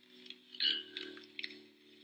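Soft lo-fi guitar music with light clicks and taps from a pen on paper and the desk, and one louder clack about half a second in.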